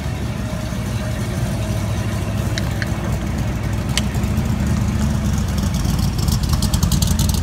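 Classic car engines running at low speed as cars roll past, a steady low rumble that grows louder toward the end as a Ford Mustang fastback approaches, with a rapid crackle near the end.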